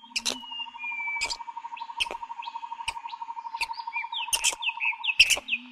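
Birds chirping: short sliding whistles and chirps over a rapid, even trill, with several sharp clicks between them.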